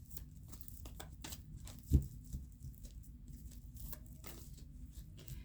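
Light handling noise: scattered small clicks and rustles over a low steady hum, with one dull thump about two seconds in.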